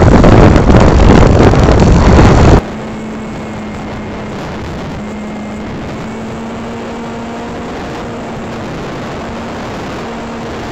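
RC plane's motor and rushing wind on the onboard phone's microphone, loud at first. About two and a half seconds in it cuts off abruptly and gives way to a much quieter steady hum with a faint whine.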